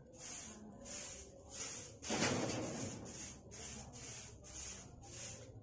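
Short grass broom sweeping a brick-paved courtyard, swishing in regular strokes about two a second, with one heavier stroke about two seconds in.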